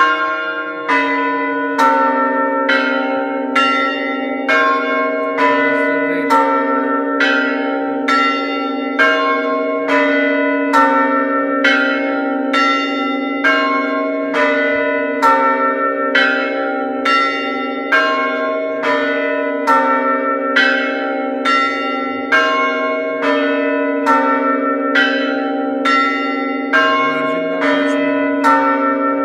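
Several Orthodox church bells struck in a steady, even peal, just over one stroke a second, each stroke ringing on into the next over a continuous deep hum.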